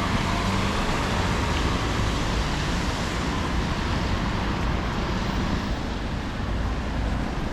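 City street traffic passing on a snowy road: a steady wash of engine rumble and tyre noise.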